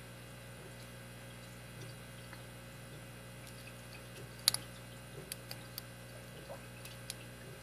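Light clicks and ticks of a lock pick and tension wrench working in a Master Lock 160 padlock. About four and a half seconds in there is one sharp click, then a few smaller ticks. A steady low hum runs underneath.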